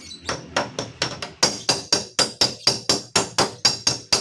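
Rapid, evenly paced hammer taps on the steel door panel of a Honda Brio, about five a second, each with a short metallic ring. This is panel beating to work out a dent.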